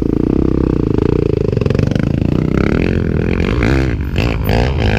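Trail dirt bike engine revving hard under load as it climbs a steep hill. Its pitch wavers up and down from about halfway as the throttle is worked.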